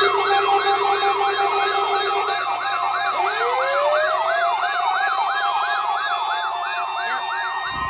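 Electronic siren repeating a fast falling sweep about three times a second, with a second siren tone rising in pitch from about three seconds in. A short low thump near the end.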